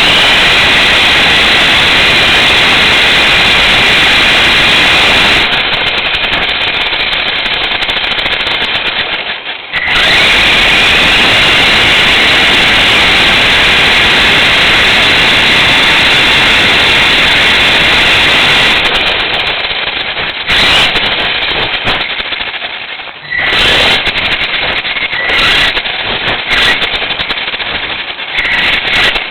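An RC car's motor and drivetrain are running, heard from a camera mounted on the car. It is a loud, rattling racket with a high whine. The motor cuts out briefly a little under ten seconds in and several times in the last third, and each time the whine rises in pitch as it picks up speed again.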